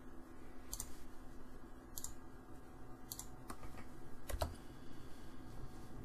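A handful of sharp, irregularly spaced clicks from a computer mouse and keyboard, over a faint steady hum.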